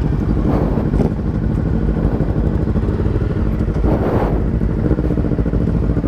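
Honda CBR300R's single-cylinder engine idling steadily, just after it has been started.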